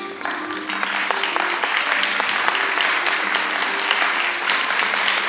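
Audience applauding, swelling up about half a second in and holding steady, with soft music playing underneath.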